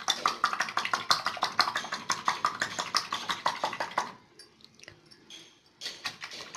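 Steel coil whisk beating raw eggs in a glass bowl: rapid rhythmic clicking and sloshing strokes, several a second, which stop about four seconds in, with one more short burst of whisking near the end.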